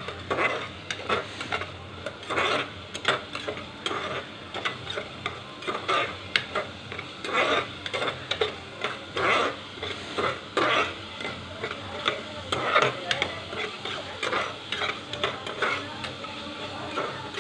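A spatula stirring and scraping a thick tomato-onion spice masala frying in oil in an aluminium pressure cooker, in repeated uneven strokes over a steady sizzle.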